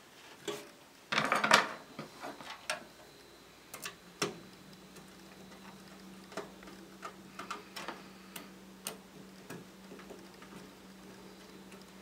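Hand screwdriver tightening screws into a steel computer case to hold a solid-state drive's metal bracket: a short cluster of louder knocks about a second in, then scattered small ticks and clicks as the screws are turned.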